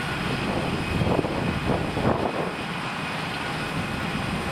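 Jet engines of taxiing airliners running at low power, a steady noise with a few brief swells in the first half.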